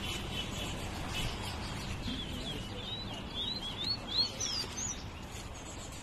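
A caged towa-towa (chestnut-bellied seed finch) singing a quick run of short, curving whistled notes, from about two seconds in until near the five-second mark.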